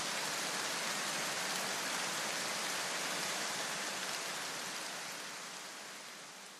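A steady, even hiss like rain or static, fading out over the last two seconds.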